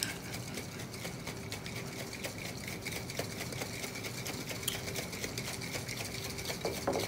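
Metal cocktail shaker shaken hard and fast, with watermelon chunks, a whole lime and vodka knocking inside in a rapid, even rhythm. The shaking is meant to break the watermelon up.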